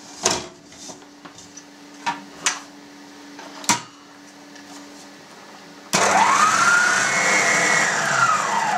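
Electric stand mixer whipping eggs and sugar with its whisk: a few clicks and knocks as the bowl and tilt head are set, then about six seconds in the motor starts loud with a whine that climbs and holds, and near the end it falls in pitch as the mixer is switched off and winds down.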